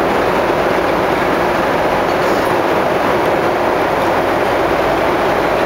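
Cabin noise of a Boeing 747 in flight: a steady, even rush from the engines and the air streaming past the fuselage, heard inside the cabin.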